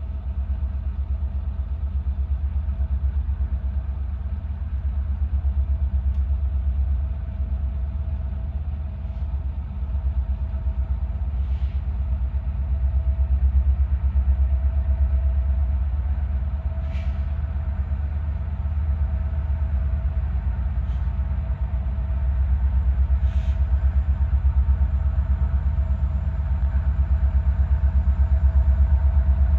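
Low, steady rumble of an approaching freight train's diesel locomotives, with a few faint clicks scattered through it.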